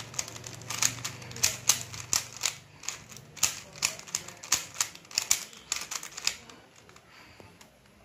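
Plastic 3x3 Rubik's cube being turned fast by hand: a quick, uneven run of sharp clacks as its layers snap round. It stops about six seconds in, when the cube is solved.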